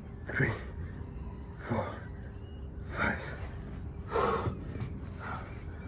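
A man breathing hard and out of breath from high-intensity exercise. Five sharp, gasping breaths come a little over a second apart.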